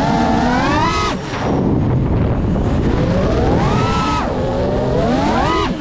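Geprc Mark 5 FPV quadcopter's brushless motors and propellers whining, the pitch climbing and falling with the throttle, with a brief throttle chop about a second in and another near the end.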